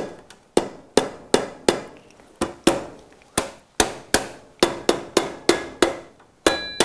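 A soft-faced mallet knocking on the galvanised sheet-steel frame of a multi-blade ventilation damper, tapping the damper's control mechanism into place. Sharp knocks at about two to three a second, the last one near the end leaving a brief metallic ring.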